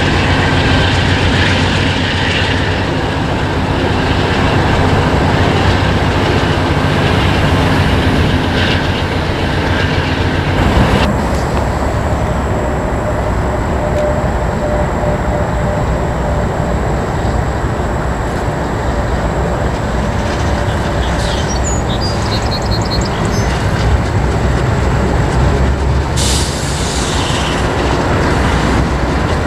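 Diesel freight trains crossing a long stone arch railway bridge: first the cars of one train running past, then, after an abrupt change about a third of the way in, a second train's two locomotives running across the bridge.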